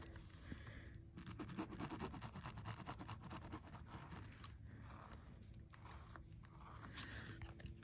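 Ballpoint pen tip scribbling across metal foil tape in quick, short scratching strokes, with a few brief pauses. The scribbling textures the smooth tape so that ink will later stick to it.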